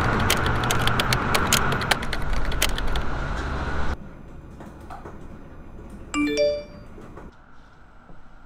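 A short message-notification chime, three quick rising notes, about six seconds in. Before it, about four seconds of loud, steady noise with many sharp clicks cuts off abruptly.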